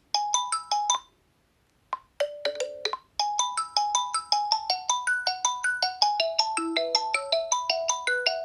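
Xiaomi Redmi 9A phone playing its built-in ringtones one after another. A short phrase of bright electronic notes stops after about a second. A brief snippet follows just after two seconds in. Then a quick, continuous melody of bell-like notes starts at about three seconds and keeps going.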